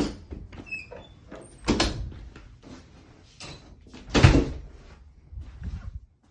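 A string of irregular knocks and thumps, the loudest a little under two seconds in and just after four seconds, with a few brief high squeaks in the first second.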